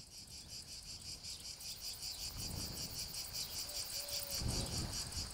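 Cicadas singing in a dense chorus of fast, evenly pulsed buzzing.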